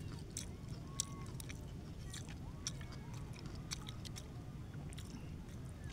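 A person chewing raw fish, with irregular wet clicks and smacks of the mouth over a steady low background rumble.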